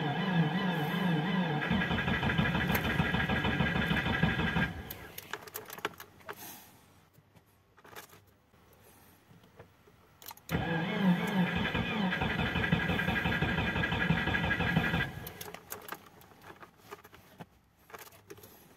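2008 Subaru Impreza's flat-four engine cranked by its starter motor in deep cold (−30 °C), in two attempts of about four to five seconds each with a pause of about six seconds between. The starter whines over a fast, even chuffing of the engine turning over, and the engine does not catch either time. A few small clicks come in the pause.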